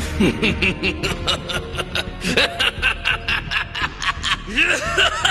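Goku Black's laugh from the anime: a man's voice laughing in rapid, repeated bursts, about five a second, over background music.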